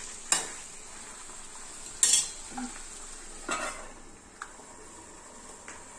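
Chicken masala sizzling in an aluminium pot while a spoon stirs and scrapes it, with a few sharp metal clanks of spoon and lid against the pot as a steel lid is set on to cover it.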